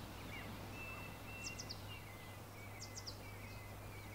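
Faint outdoor ambience with birds chirping: short, quick high calls in small clusters of two or three, twice, over thin sustained high notes and a low steady hum.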